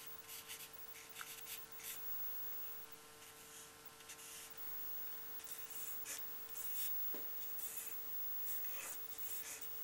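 Charcoal stick scratching over drawing paper in short, irregular strokes, laying in shading tone; faint.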